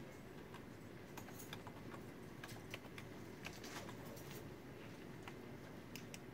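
Faint computer keyboard typing: scattered, irregular key clicks over a low steady room hum.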